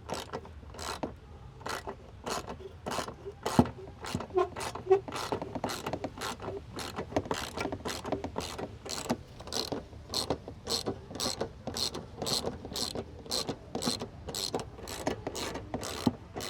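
Socket ratchet wrench on an extension clicking steadily, a few clicks a second, as it is worked back and forth to undo a 10 mm fastener.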